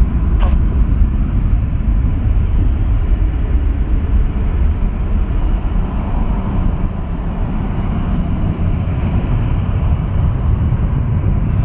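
Airbus A380-861 jet engines idling as it taxis: a steady low rumble with a faint hiss and a thin steady whine above it.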